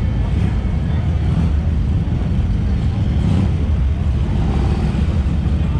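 Steady low rumble of motorcycle engines running, with faint voices behind it.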